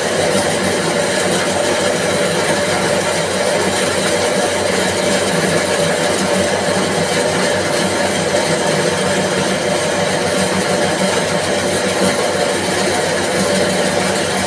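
Coconut coir spinning machine running steadily, a continuous mechanical hum with constant tones that does not change.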